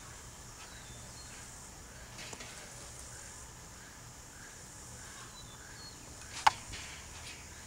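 Quiet background with a faint steady high hiss. About six and a half seconds in comes a single sharp tap: a young jaguarundi's paw striking the camera through the wire mesh.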